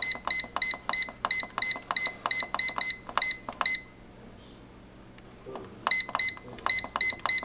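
Control panel of a Cuisinart electric pressure cooker beeping once for each press of its Time button as the high-pressure cook time is stepped up, about three short beeps a second. The beeping stops for about two seconds a little past the middle, then starts again.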